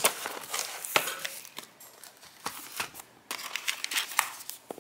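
Cardboard packaging being handled by hand: rustling and light taps, with sharp clicks at the start and about a second in.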